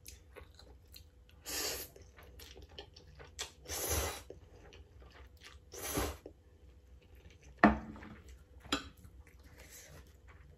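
Spicy instant noodles slurped up from chopsticks three times, each slurp about half a second long, with wet chewing in between. A sharp click comes about two thirds of the way through, then a smaller one.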